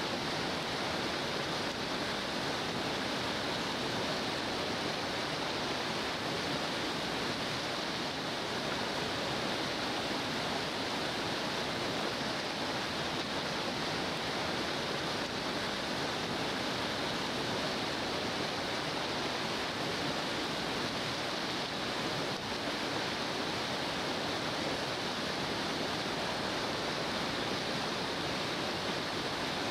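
River whitewater rapids rushing: a steady, unbroken noise that holds level throughout.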